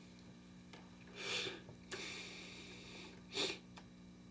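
A person sniffing through the nose twice: a softer, drawn-out sniff about a second in and a short, sharper one a little past three seconds.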